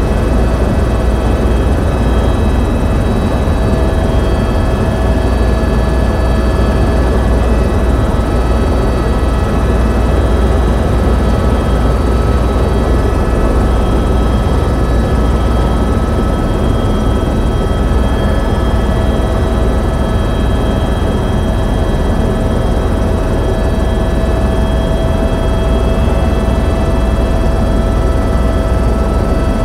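Tour helicopter in cruise flight, heard from inside the cabin: a loud, steady drone of rotor and turbine, a deep rumble with several steady whining tones above it.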